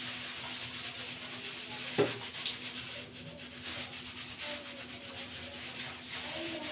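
Hands scrubbing shampoo lather through wet hair: a steady rubbing, squishing sound. A sharp knock comes about two seconds in, and a smaller one half a second later.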